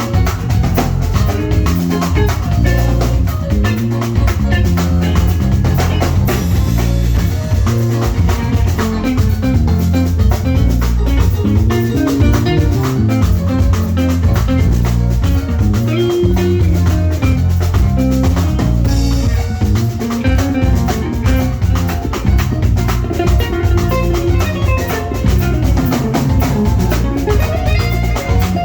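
Live band playing an instrumental groove: drum kit keeping a steady beat over a heavy bass line, with guitar and melodic keyboard-like lines.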